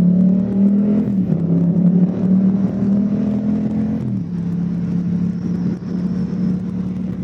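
Motorcycle engine accelerating away from a stop, with upshifts about a second in and again around four seconds, then running steadily at cruising speed, with wind noise.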